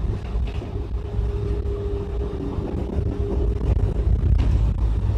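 Steady low rumble of a bus in motion, engine and road noise heard from inside the cabin. A faint steady whine joins it about a second in and fades out near the end.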